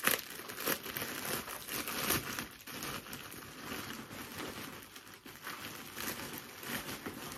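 Plastic poly mailer bag crinkling and rustling in irregular crackles as it is torn open by hand and a plastic-wrapped package is pulled out of it.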